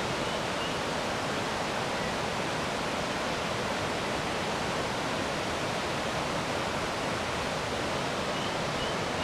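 Fast, deep river water rushing over the El Chiflon cascades: a steady, even roar of water with no let-up.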